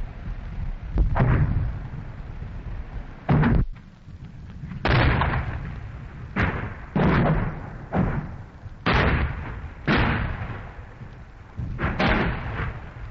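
Battlefield gunfire: German shells bursting, some as air bursts, mixed with British Churchill tanks firing 6-pounder guns about 150 yards off. A sharp blast comes every second or so, each trailing off in a rolling echo.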